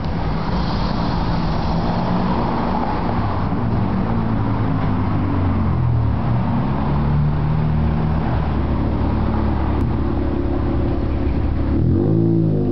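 Motor vehicles driving past close by on a street, their engines running with a steady low drone that shifts in pitch as they pull away. Near the end a nearby car's engine revs up and back down.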